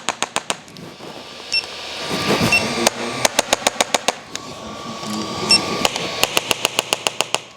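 Handheld electronic chiropractic Impulse adjusting instrument firing: rapid runs of sharp mechanical clicks, several a second, with a few short high beeps.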